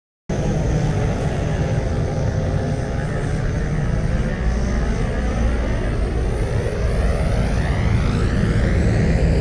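Star Wars Trade Federation MTT (Multi-Troop Transport) interior engine noise, a sound effect that cuts in abruptly right at the start. It is a steady, heavy low rumble with a slowly sweeping, phasing hiss above it.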